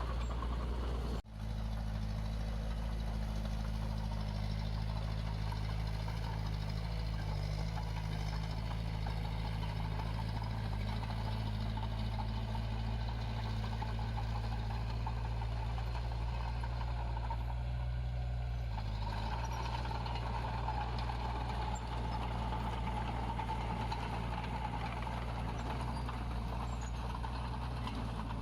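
Diesel engine of heavy earthmoving equipment running steadily. About a second in the sound cuts out briefly, and about two-thirds of the way through the engine note shifts.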